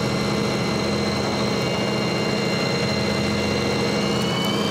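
Fishing boat's engine running steadily: a low drone with a high whine over it that rises a little in pitch near the end.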